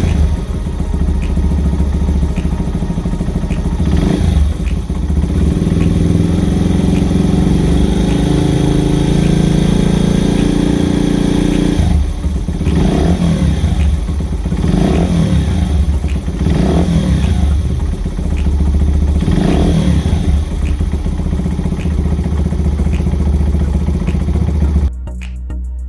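Honda Ape 50 motorcycle's single-cylinder four-stroke engine, bored up to 82cc, running, then revved four times in quick blips about halfway through; it cuts off abruptly near the end.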